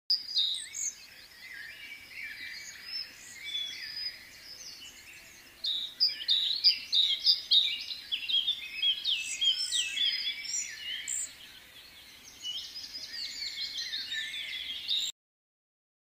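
A chorus of many small birds chirping and trilling together in quick overlapping calls, busiest in the middle and cutting off suddenly near the end.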